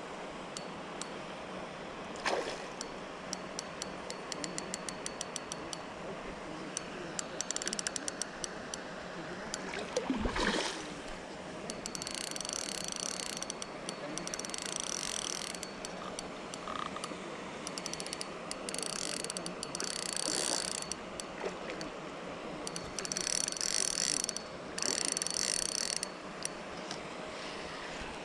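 A spinning reel's drag clicking as a hooked carp pulls line off it. It starts as separate clicks, then comes in several fast runs of a second or two each. There is a single thump about ten seconds in.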